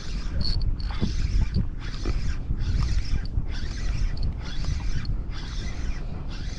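Fishing reel cranked steadily under load as a hooked fish is brought in: a mechanical whir that rises and falls with each turn of the handle, a little faster than once a second, over a low wind rumble.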